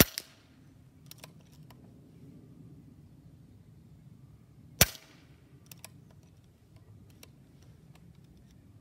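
Diana Outlaw .22 PCP air rifle firing two shots about five seconds apart, each a short sharp crack. A second, smaller snap follows just after the first shot, and a few light clicks come between the shots.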